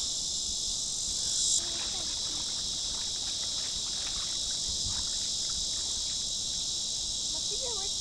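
A steady, high-pitched chorus of insects, which swells slightly and then drops a little about a second and a half in.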